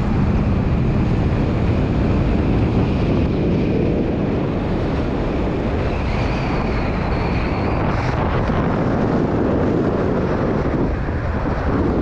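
Heavy wind buffeting the microphone, a loud, steady rushing noise.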